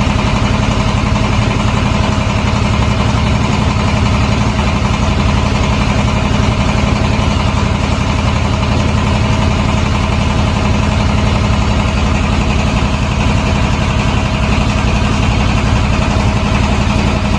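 Boat engine running steadily at an even speed, a constant low engine note with no change in pitch or level.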